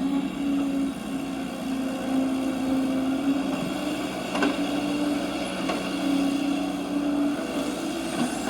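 Steady whine of a radio-controlled construction model's electric drive, with a couple of faint clicks about halfway through.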